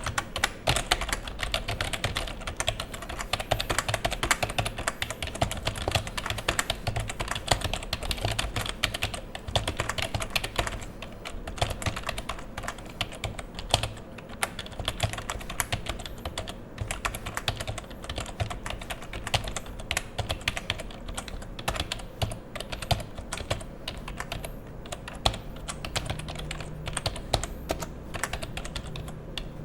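Typing on a Fujitsu 128872-002 Rev.A rubber dome keyboard: a continuous run of rapid keystrokes.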